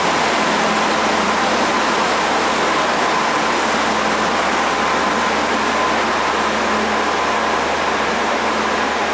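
Indian Pacific stainless-steel passenger carriages rolling slowly past along the platform: a steady rolling noise with a faint even hum.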